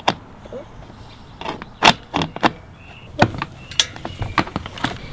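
Cleated shoe clacking and scraping against Crank Brothers Mallet DH clipless pedals in a string of irregular sharp knocks as the rider stabs at them, trying and failing to clip in. The pedal's pins, set too high, keep the cleat from engaging.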